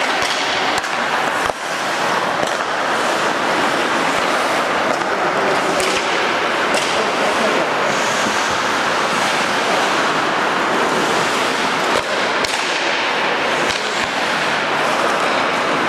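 Ice hockey play on a rink: a steady hiss of skate blades on the ice, with a few sharp clacks of stick and puck.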